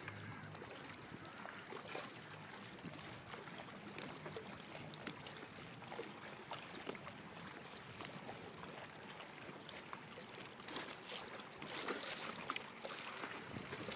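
Small waves lapping and splashing, with many short irregular splashes, slightly busier near the end.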